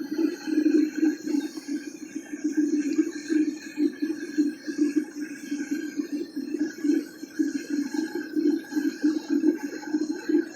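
Home-built aluminum-melting furnace running, a steady low drone that flutters rapidly.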